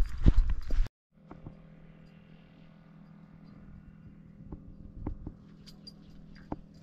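About a second of loud scuffing footsteps that cuts off abruptly, followed by a faint steady low hum with a few soft clicks.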